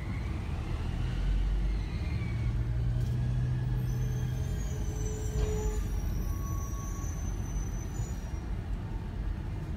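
Compressed-natural-gas garbage truck's engine running as the truck creeps along, a steady low rumble that swells for a couple of seconds early on, with a thin high squeal from about four to eight seconds in.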